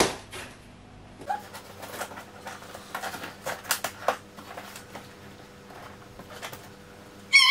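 Scissors cutting and scraping the packing tape on a cardboard box: scattered scratches, clicks and small rips of tape and cardboard. A short high-pitched sound, louder than the rest, comes just before the end.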